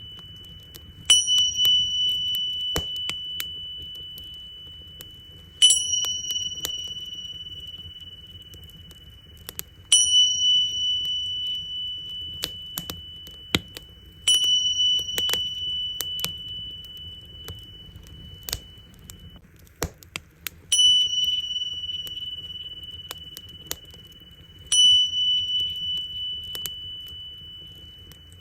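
Tingsha cymbals struck six times, about every four to five seconds. Each strike gives a bright, high, steady ring that slowly fades. Sharp crackles and pops of a burning wood fire sound throughout.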